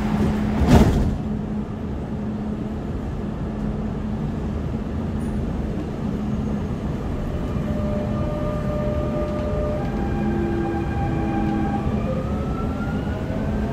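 Dubai Metro train heard from inside the carriage: a steady hum with a single sharp thud about a second in. From about eight seconds the train pulls away, its traction motors giving a stepped whine that climbs in pitch near the end.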